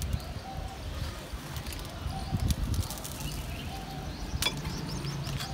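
Soil being handled and pressed in by hand around the base of a potted plant, soft scraping and crumbling, with a couple of sharp clicks about four and a half seconds in.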